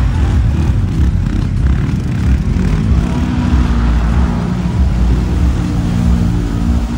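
Kawasaki KRX 1000 side-by-side's engine revving as it drives through a mud pit, with water and mud splashing. The engine note climbs from about three seconds in.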